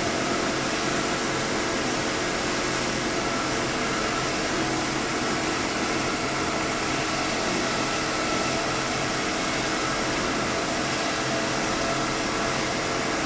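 Diamond wire saw running steadily while cutting concrete: a constant mechanical drone and hiss with a steady hum that does not change in pitch or level.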